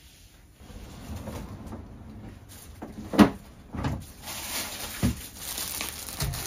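Kitchen handling sounds: a sharp knock about three seconds in, like a cupboard door, then a few softer thumps and plastic rustling as a bag of onions is set down on a wooden table.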